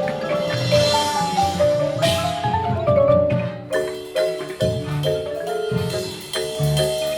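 High school marching band playing its half-time show: a stepping melody over drums, with a cymbal crash about two seconds in.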